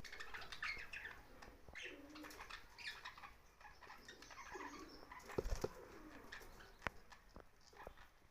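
Young budgerigars chirping and chattering softly, with some lower warbling notes and a few sharp clicks about five and a half and seven seconds in.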